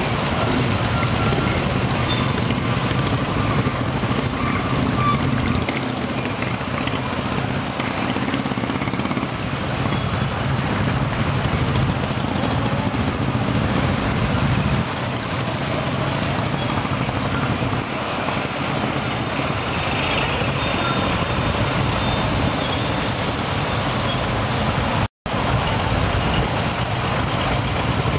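A procession of Royal Enfield Bullet motorcycles riding past, their single-cylinder four-stroke engines running in a loud, steady mass of exhaust noise. The sound cuts out for a split second near the end.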